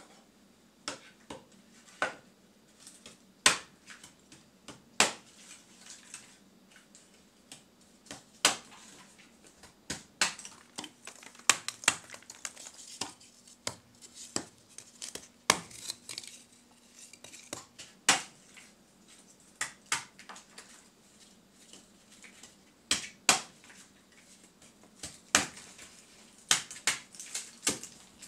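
Lumps of forge charcoal being chopped small with a short broad blade on a wooden block: irregular sharp, clinking cracks, sometimes single and sometimes several in quick succession.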